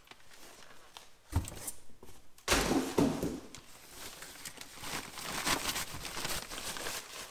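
Clear plastic bag rustling and crinkling around a helmet as it is lifted out of a cardboard box and handled. A dull thump comes about a second and a half in, and a louder bump with rustling about two and a half seconds in.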